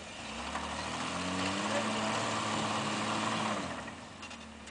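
Off-road truck engine revving up under load, holding high revs for about three seconds, then easing off near the end.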